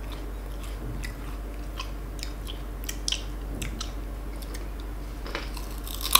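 Eating crunchy unripe green mango: scattered small crisp mouth clicks, then one loud crunch near the end as a slice is bitten.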